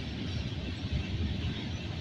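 Boxcars of a CSX freight train rolling past close by: a steady low rumble of steel wheels on the rails with a higher rushing noise over it.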